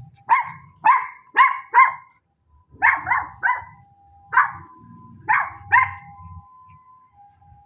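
A dog barking: about ten short, sharp barks in quick clusters, fading out after about six seconds.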